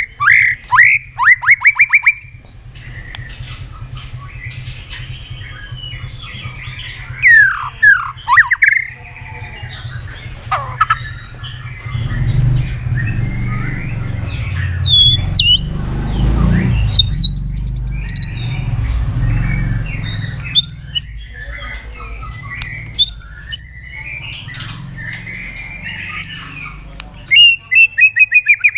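White-rumped shama (murai batu) singing loudly: varied phrases of fast repeated notes, sweeping whistles and harsh chattering notes, broken by short pauses. A low rumble sits under the song in the middle.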